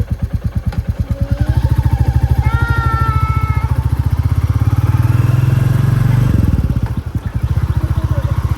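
Royal Enfield Classic 350's single-cylinder engine thumping with slow, evenly spaced exhaust beats. Its revs build from about a second in and hold through the middle, then drop sharply around six seconds in before the beats carry on. A brief steady high tone sounds over it about two and a half seconds in.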